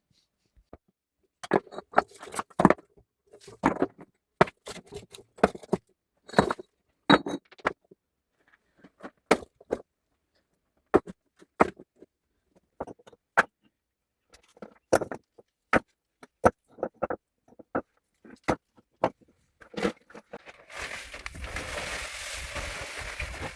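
A run of sharp, irregular knocks and clatters of hard objects being handled, then a steady noisy rustle starting about three seconds before the end.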